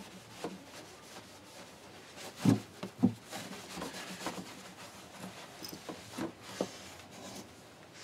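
A cloth rubbing and wiping over the thin polyurethane finish of an acoustic guitar body, with small handling knocks on the wood. Two louder knocks come about two and a half and three seconds in.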